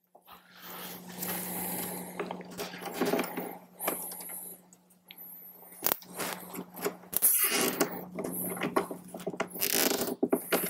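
Nylon zip ties being pulled through and cinched around speaker wiring in a plastic saddlebag lid, with irregular scraping and clicking and one sharp click about six seconds in. A steady low hum runs underneath.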